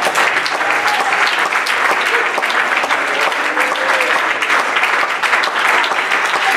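Church congregation applauding steadily: a dense patter of many hands clapping, with a few faint voices calling out within it.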